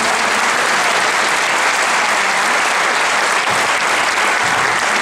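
Audience applauding, a steady, loud clapping from a large crowd.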